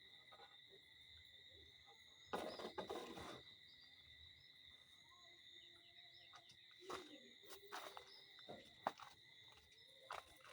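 Near silence with a faint, steady, high-pitched insect drone, typical of night crickets. A few soft rustles and small knocks come and go.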